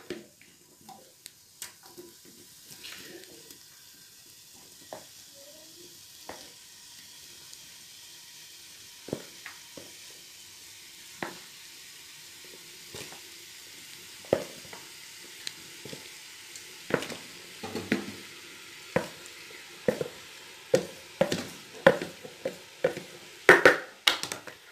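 Diced pork offal sizzling as it is tipped into hot dendê oil in an aluminium pot. The mixture is scraped out of a plastic basin in a string of clicks and knocks, which come faster in the second half.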